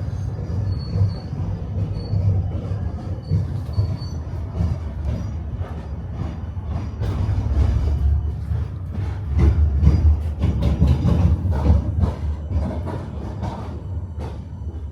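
Tram running on city track: a steady low rumble with rapid knocking and clatter of the wheels over rail joints and points, busier and louder in the second half. A faint high wheel squeal comes in the first few seconds.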